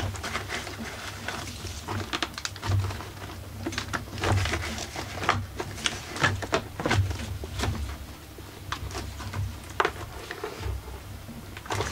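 Plastic housing of a small portable inverter generator being handled and pulled open by gloved hands: scattered clicks, knocks and rustling against the casing.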